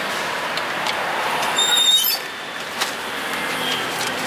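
Steady noise of street traffic, with a brief high-pitched squeal a little under two seconds in and a few light clicks.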